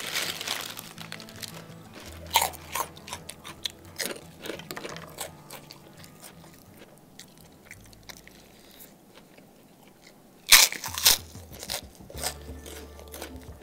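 Crunching bites of kerupuk (Indonesian crackers) eaten with rice close to the microphone. A plastic cracker bag rustles briefly at the start. The loudest crunches come about ten and a half and eleven seconds in.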